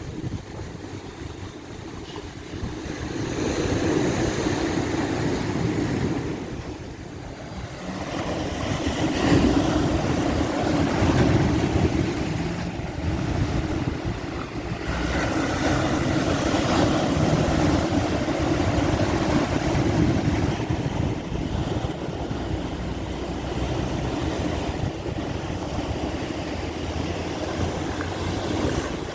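Sea waves washing onto a beach at high tide, a steady surf rush that swells about three seconds in, eases briefly and then rises again to a fuller, continuous wash.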